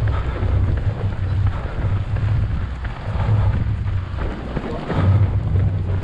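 Wind buffeting the microphone of a body-worn camera on a running runner: a loud low rumble that swells and fades every second or so.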